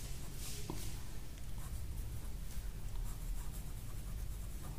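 Pen writing on notebook paper: faint, irregular strokes of the pen tip on the page, over a low steady hum.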